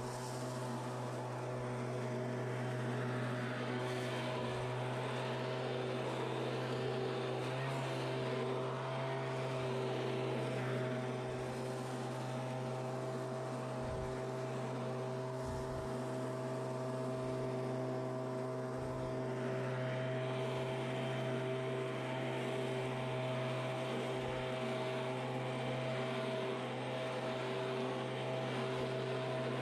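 Stihl gas-powered leaf blower running at a steady engine speed, its engine drone under the rush of air from the nozzle.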